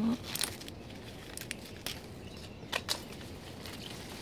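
Leaves and dry bean vines rustling and crackling in a few short, separate bursts as they brush against someone moving through them, over a faint steady hiss.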